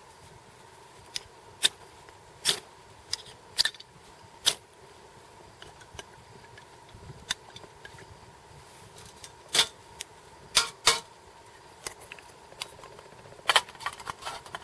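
A metal utensil clinks and scrapes against titanium cookware in irregular sharp knocks, some close together in pairs, the loudest near the middle and near the end.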